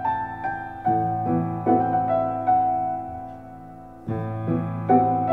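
Slow solo piano music, with notes struck a little over twice a second. The notes die away into a brief lull a little after three seconds in and start again about four seconds in.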